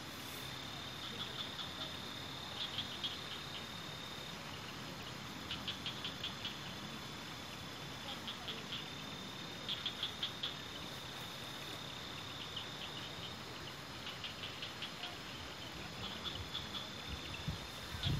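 Night insects calling: groups of rapid high chirps repeating every second or two over a steady high trill, against a soft even hiss.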